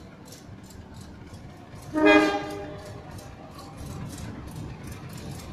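Diesel locomotive horn sounding one short, loud blast about two seconds in as the train approaches. Afterwards the low rumble of the oncoming train builds.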